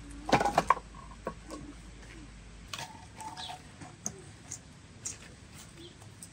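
Split firewood logs dropped onto a woodpile, a quick clatter of hollow wooden knocks about half a second in. After it, a few scattered lighter wooden taps and clicks as pieces of wood are handled.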